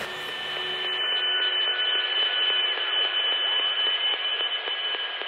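Static hiss like a radio tuned between stations, thin and narrow in range, with a steady high whistle and faint whistles sliding up and down.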